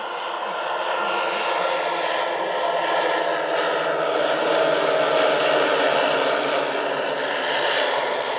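The twelve 10 cc OS model engines of a 1:10 scale Dornier Do-X flying boat running together in a flyby, a dense drone of many overlapping engine tones. It grows louder to a peak about five seconds in and fades a little near the end.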